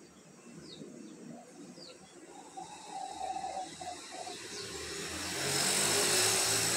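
Outdoor background with a few short, falling bird chirps in the first two seconds. It is then overtaken by a broad rushing noise that swells to its loudest near the end.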